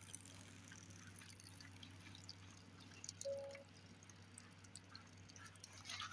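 Faint water dripping and trickling, with scattered small ticks and one brief tone about three seconds in.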